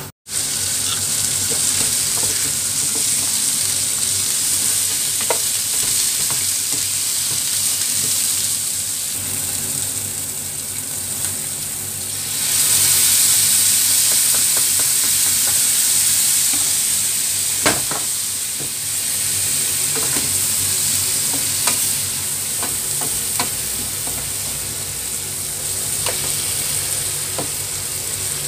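Marinated pork spareribs sizzling as they fry in a pan, a steady hiss that gets louder about twelve seconds in when the glass lid comes off. A few sharp clicks come in the second half.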